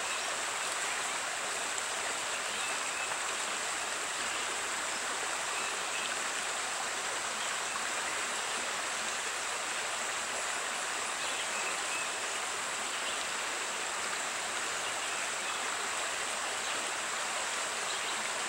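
Creek water flowing steadily, an even rushing sound with no breaks.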